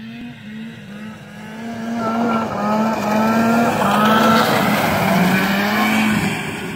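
Snowmobile engine running at speed as the sled approaches and passes close by. It gets louder toward the middle and fades as it moves away, and its note wavers slightly with the throttle.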